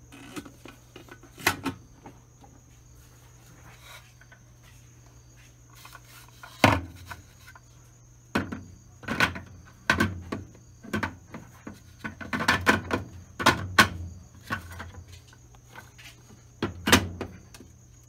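Plastic parts of an Electrolux 12 kg top-loading washing machine being handled: irregular clicks and knocks as the lint filter is pulled from the agitator and the softener dispenser drawer is lifted out and slotted back in. A steady faint high whine and a low hum run underneath.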